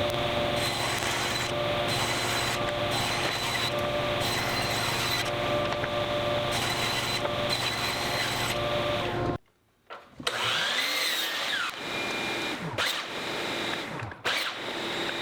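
Power tools running in a woodshop. A steady machine noise runs for about nine seconds and cuts off abruptly, then shorter tool sounds with rising and falling pitch and a few knocks follow.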